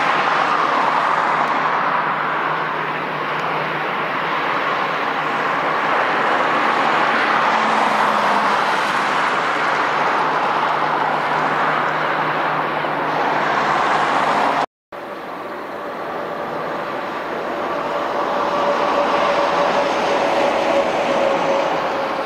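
Jet airliner engines running loud and steady, a whine over a rushing noise. The sound drops out for an instant about fifteen seconds in, then resumes with a whine that slowly falls in pitch.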